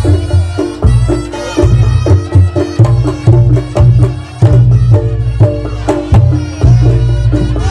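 Reog Ponorogo gamelan accompaniment: deep drum strokes and pitched gong-chime notes repeating in a steady, driving rhythm, with sharp percussion hits throughout.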